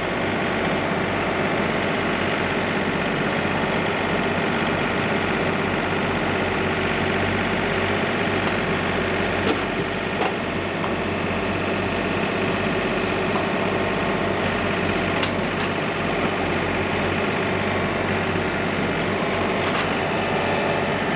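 Diesel engine of a John Deere compact tractor running steadily as its grapple moves logs, with a couple of short knocks along the way.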